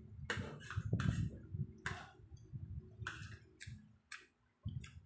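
Irregular clicks and knocks, about eight in five seconds, over a low steady hum.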